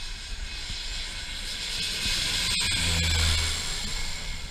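Small twin-engine propeller plane passing low overhead on landing approach: engine and propeller noise swells to a peak about three seconds in, then fades.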